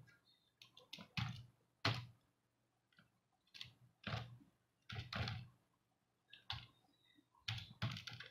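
Faint computer keyboard keystrokes, about a dozen single key presses at an uneven, unhurried pace with short pauses between.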